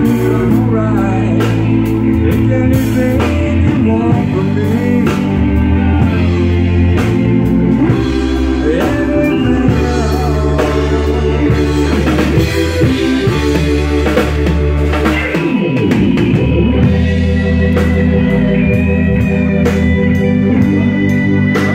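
Live rock band playing: drum kit, electric guitar and keyboards, with held organ chords and a synth played on top of them, and bending lead lines over a steady drum beat.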